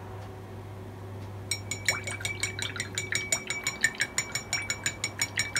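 Paintbrush being rinsed in a glass jar of water, its handle clinking rapidly against the glass, about five ringing clinks a second, starting about a second and a half in.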